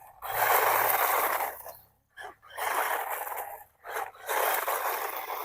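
Gantry Pro brushless 4WD RC off-road car driven on its medium speed setting in three bursts of throttle, each a noisy rush from the motor, drivetrain and tyres. The bursts last about one and a half, one and one second, with short gaps between them.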